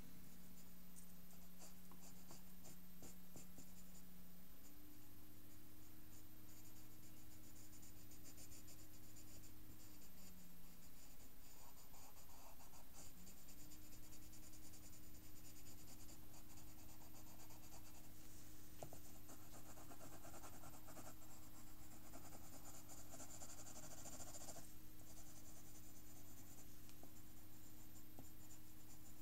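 Pencil scratching on drawing paper in quick, repeated sketching and shading strokes, heaviest in the middle stretch. A faint steady low hum sits underneath and shifts in pitch a few times.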